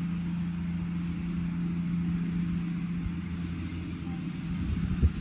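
A steady low mechanical hum with a rumble beneath it, like an engine or machine running, and one short thump near the end.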